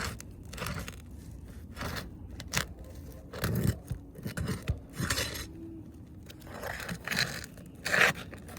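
Tool scraping and prying under asphalt roof shingles to loosen the roofing nails, in short irregular strokes with a sharp click a few seconds in and the loudest scrape near the end.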